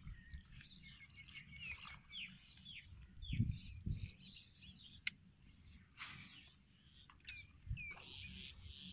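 Wild birds chirping and calling outdoors, many short, quick falling notes overlapping throughout, over a low rumble of wind noise. A couple of low thumps come about three and a half seconds in.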